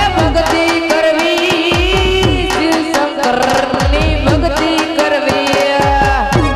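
Indian folk music: tabla-style hand-drum strokes with deep bass beats that drop in pitch, under a sustained melodic instrument line.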